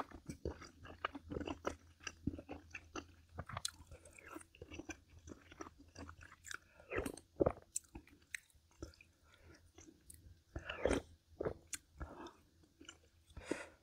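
A person eating close to the microphone: chewing with many short, crisp crunches and a few louder bites.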